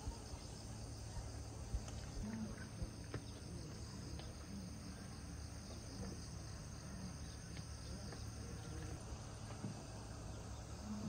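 Open-air ambience of insects chirring steadily, over a low steady rumble and a few faint clicks.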